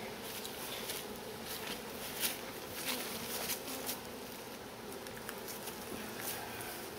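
Honeybees of an opened nuc colony buzzing steadily, with scattered light clicks and taps through the buzz.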